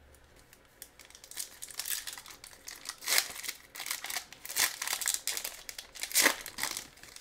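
Foil wrapper of a 2020 Certified football card pack being torn open and crinkled by hand. It starts about a second in as irregular crackling, with a few louder rips.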